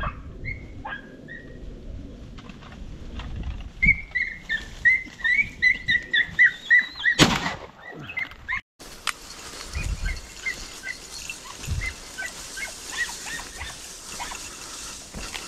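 Podenco hounds yelping in quick succession on a rabbit's trail, about two high yelps a second, then a single loud shotgun shot about seven seconds in. After a cut, fainter yelping goes on over a steady hiss.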